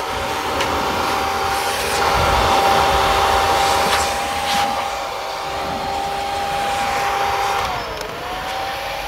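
Handheld corded electric air blower running steadily, a motor whine over rushing air, as it blows air into the spout of a plastic jerrycan. About eight seconds in the whine dips in pitch and comes back up.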